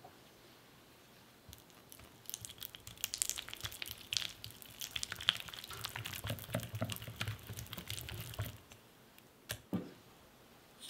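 Whisk stirring melted dark chocolate and butter in a glass bowl: a rapid run of light clicks and scrapes of the whisk against the glass for about seven seconds, then two short taps near the end.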